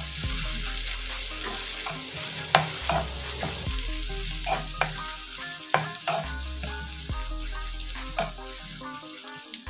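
Chopped onion, green chilli and ginger-garlic paste sizzling steadily in hot oil in an iron karahi. A metal spatula stirs the mixture, with sharp clicks and scrapes against the pan several times.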